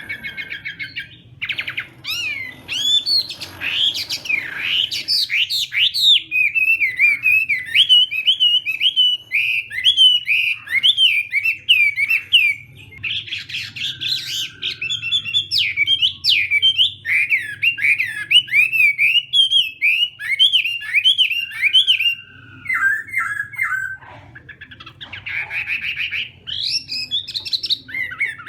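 Chinese hwamei (hoạ mi) singing a long, varied song of rapid whistled notes that slide up and down, with a few short breaks.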